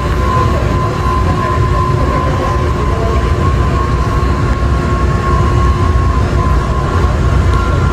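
Steady, loud, low machinery rumble with a constant whine over it: the running machinery and ventilation noise inside a naval ship's hangar deck.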